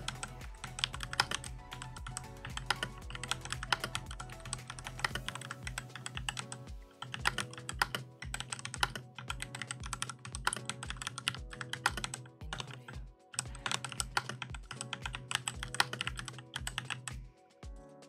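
Fast continuous typing on a Keychron K4 v2 mechanical keyboard with its stock switches and keycaps, a rapid patter of keystrokes that stops just before the end. Background music with a steady beat plays underneath.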